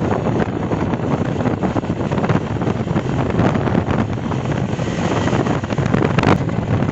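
Wind rushing over the microphone of a Honda CB Shine 125 cc single-cylinder motorcycle riding at highway speed, its engine running steadily underneath. A brief sharp click comes about six seconds in.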